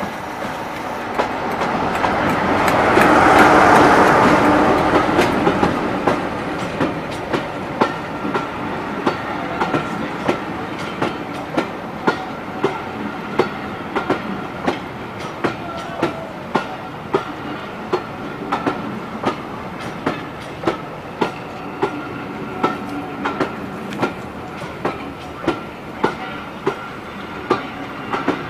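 A Class 47 diesel-electric locomotive passes close by, loudest about three to four seconds in. Its train of coaches then rolls slowly past, the wheels clicking over the rail joints about twice a second over a steady rumble.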